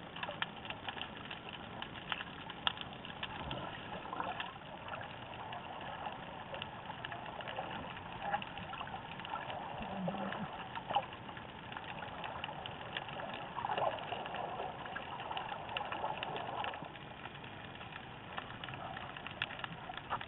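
Underwater sound picked up by a waterproof camera: a muffled, low hiss of water with many small scattered clicks and crackles.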